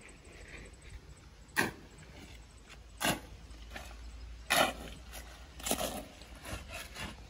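Small hand trowel scraping and scooping through a damp, gritty sandy heap against a concrete wall, in about six short strokes; the sharpest come about one and a half and four and a half seconds in.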